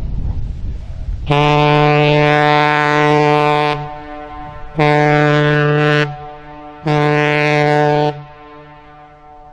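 Lake freighter Alpena's horn sounding one long blast and then two shorter ones, a low, steady tone with many overtones. Wind rumbles on the microphone before the first blast.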